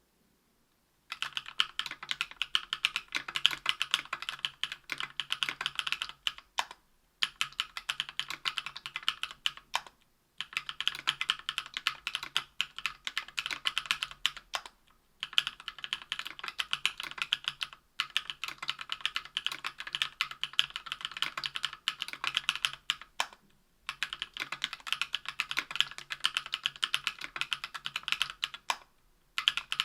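Fast typing on a 60% aluminium-case, aluminium-plate mechanical keyboard fitted with lubed JWK CW 65 g linear switches and GMK keycaps: dense runs of key clacks with brief pauses every few seconds. The switches and springs are lubed with Krytox 205g0/105, giving a smooth linear sound without spring ping.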